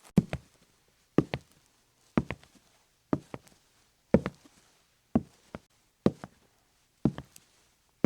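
Slow footsteps on a hard surface, about one step a second, eight in all, each a quick heel-then-toe double knock.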